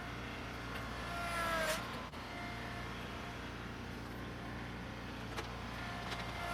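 Tractor engine running steadily under load, with a short rising whine about a second and a half in and a few clanks.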